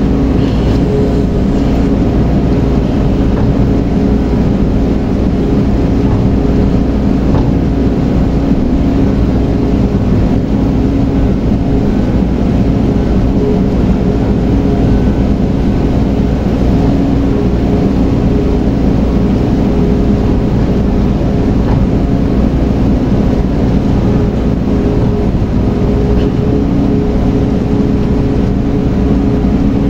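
Large engine running at a steady, unchanging drone with a constant low hum.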